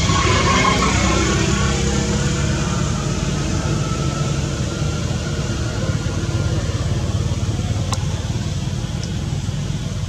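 Steady low background rumble, with a short wavering call in the first two seconds and a single click near the end.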